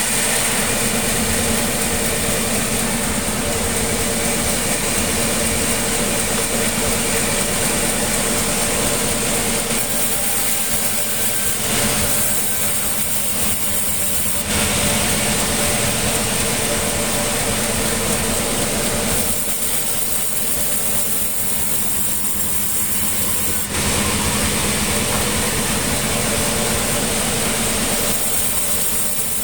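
Sawmill machinery running with a steady engine-like hum. A harsher, noisier layer comes and goes every few seconds, switching on or off abruptly.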